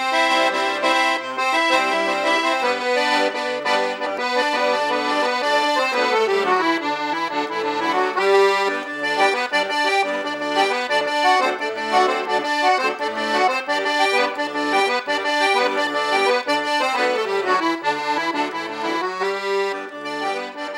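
Instrumental accordion music: sustained chords under a moving melody, with a falling run about six seconds in.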